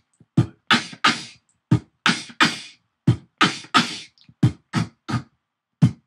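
Beatboxing into a handheld microphone: a repeating 'B-K-K' pattern, a low bass-drum 'B' kick followed by two sharper, hissing 'K' snare sounds, played steadily about four times over.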